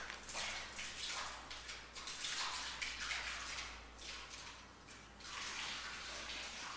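Irregular scuffing and crunching footsteps over a debris-strewn floor, about one a second.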